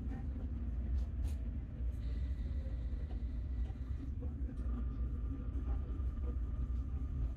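A tram running along its rails, heard from inside the car: a steady low rumble of wheels and running gear, with a faint high whine coming and going from about two seconds in.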